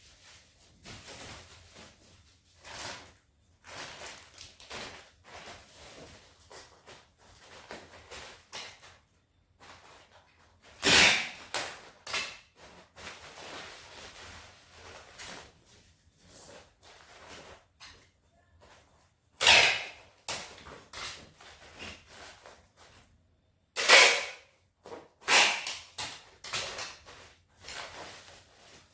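Irregular household handling noises: scattered rustles, scrapes and knocks, with a few louder bursts each lasting about a second, about a third of the way in, two-thirds in, and several close together near the end.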